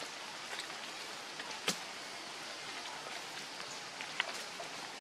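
Steady outdoor hiss with scattered small ticks and one sharp click a little under two seconds in.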